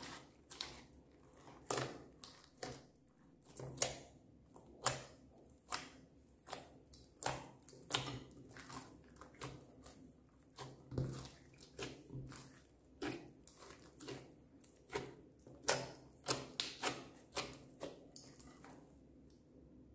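Hands squishing and kneading a large mass of glittery clear slime in a glass dish, giving irregular sticky pops and squelches, a few each second, that thin out near the end.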